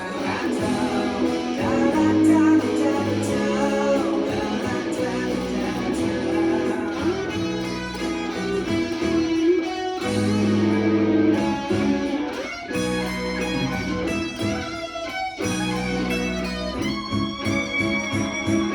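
Instrumental music led by a plucked guitar, playing sustained notes and chords over a bass line with no singing.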